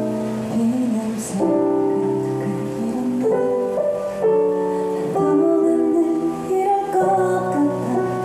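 Slow ballad: piano chords held and changing every second or so, with a woman singing into a microphone over them.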